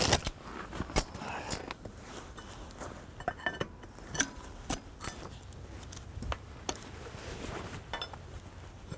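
Scattered metallic clinks and taps of a wrench, washers and nuts on the steel bearing bolts of a sawmill's pillow-block bearing mount, the sharpest one right at the start.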